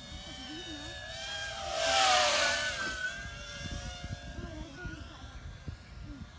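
Racing quadcopter's motors and propellers whining as it flies past close by. The sound is loudest about two seconds in, and the pitch drops as it moves away.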